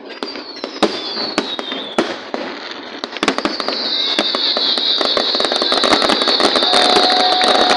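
Fireworks going off: scattered sharp bangs and pops with a falling whistle. From about three seconds in, the bangs give way to a dense crackling over a steady high hiss that grows louder.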